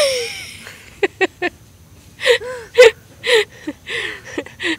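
A person's breathy laughter and gasps. A sharp loud burst opens it, three short clicks follow about a second in, and from about halfway there is a run of short laughs, roughly two a second.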